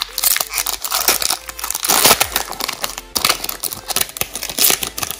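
Foil wrapper of a Pokémon booster pack crinkling and crackling irregularly as it is handled and opened.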